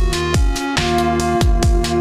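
Electronic background music with a steady beat: deep kick drums that fall in pitch, held synth notes and crisp hi-hat hits.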